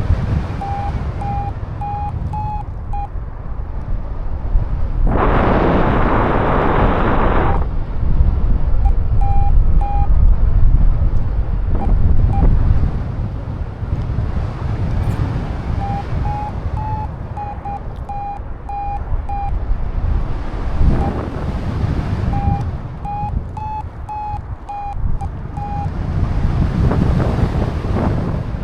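Strong wind buffeting the microphone, with a flight variometer beeping in runs of short, evenly spaced beeps, about three a second, rising slightly in pitch: the climb tone of rising air. A loud burst of hiss cuts in about five seconds in and lasts a couple of seconds.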